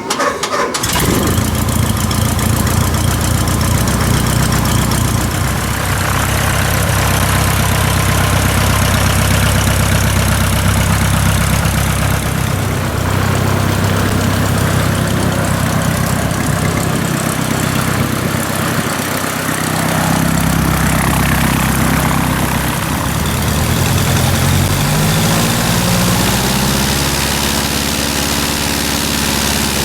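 Cessna 150H's Continental O-200 four-cylinder engine running at a low, steady speed. Its pitch rises over a couple of seconds near the end as it is throttled up, then holds at the higher speed.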